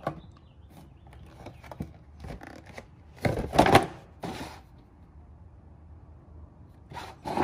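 Rustling and crinkling of packaging as a new engine air filter is handled and unpacked, in a few short bursts, the loudest about three and a half seconds in.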